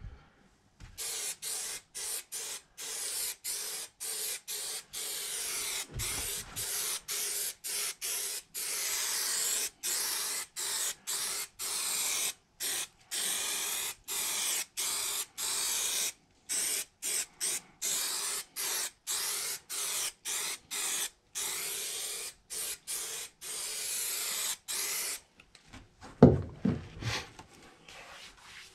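Aerosol spray-glue can spraying adhesive in dozens of short hissing bursts, about one to two a second, then stopping. A few knocks follow near the end.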